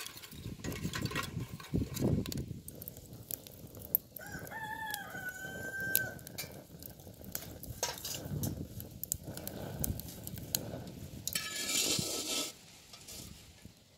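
Wood fire crackling and popping in a metal fire stove. A rooster crows once, about four seconds in, for about two seconds. A louder rasping noise comes near the end.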